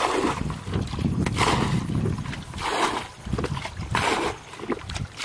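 Water splashing and sloshing as a bucket is scooped through shallow muddy water and the water flung out, bailing the pool. The splashes come in a rough rhythm, about one every second and a half.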